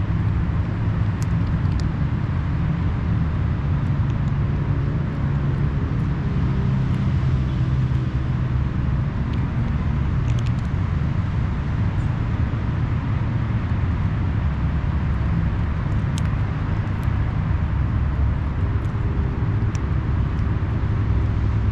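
Steady low rumble of a motor vehicle engine running, with a faint hum in it.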